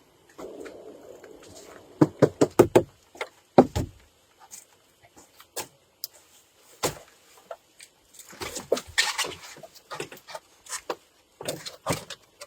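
A quick run of about six sharp knocks about two seconds in, a heavier knock soon after, then scattered clicks and a rustling scrape.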